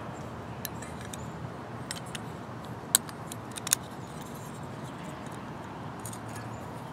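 Thin metal plates of a Bushbox Micro Pocket folding wood stove clicking and clinking as they are handled and slotted together, with two sharper clicks around three seconds in, over a steady low background noise.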